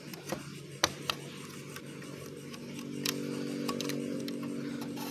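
Scattered light clicks and taps from handling the plastic clamp and wing post of a rubber-band model plane while a rubber band is hooked on, over a steady low hum that grows a little louder about halfway through.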